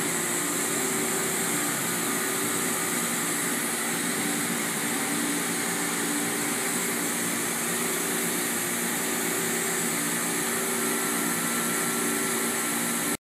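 Höfler Rapid 1250 CNC gear grinding machine running: a steady mechanical hum with several steady tones over a hiss, which cuts off suddenly at the end.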